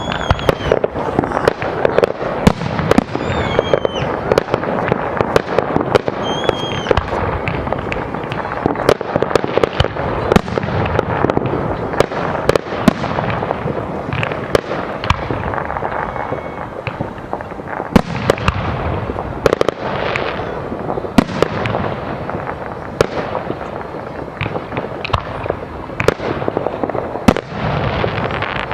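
Aerial fireworks display: a continuous barrage of sharp bangs and crackling, many reports overlapping, with a few short whistles now and then.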